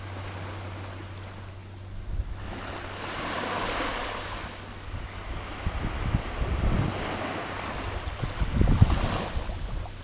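Small waves breaking and washing up a sandy beach, the hiss swelling and fading twice. Wind buffets the microphone from about two seconds in, strongest near the end.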